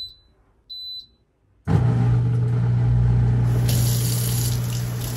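Two short high beeps about a second apart from an Electrolux 8-place-setting dishwasher's control panel as its buttons are pressed. About a second and a half later a kitchen faucet starts running steadily into the sink, with a low steady hum under the water.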